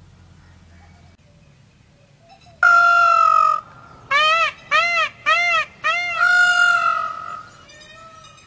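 Indian peafowl (peacock) calling loudly: one long call, then four short calls in quick succession, each rising and falling in pitch, then another long call.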